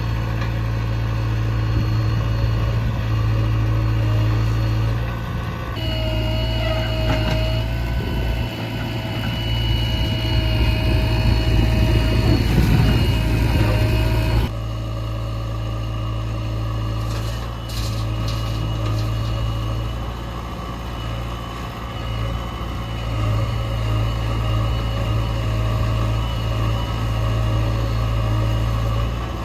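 Diesel engine of a JCB backhoe loader running steadily. In the middle stretch it works harder, with a steady whine over it, and the sound changes abruptly twice.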